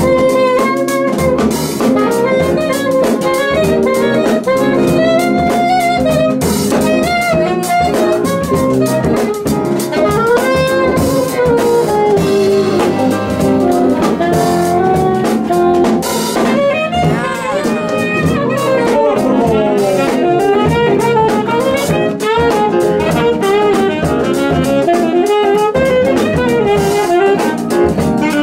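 Live jazz band playing: a saxophone melody over electric guitar, electric bass and a drum kit.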